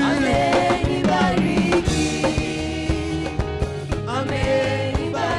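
Upbeat church praise music: a band with drum kit and percussion keeping a beat under a melody, with singing voices.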